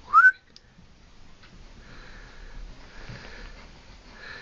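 A short, loud rising whistle right at the start, then a German Shepherd sniffing steadily as it searches for its ball.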